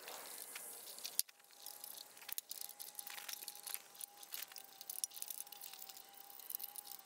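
Sped-up handling sounds from work on a small engine: quick, scattered clicks and clinks of metal parts and tools, with a faint steady thin tone underneath after about a second.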